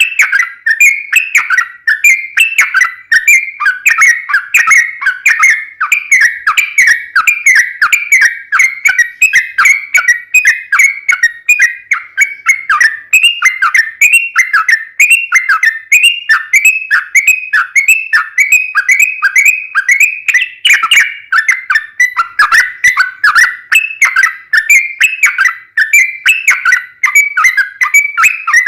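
Yellow-vented bulbul singing in a long, unbroken run of quick, short whistled notes, several a second, a rapid 'ropel' song used as a lure to get other bulbuls to sing back.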